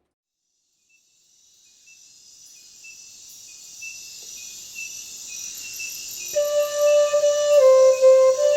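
Out of near silence a high, shimmering chirring fades in and slowly grows; about six seconds in a flute enters, playing long, steady notes that step between pitches.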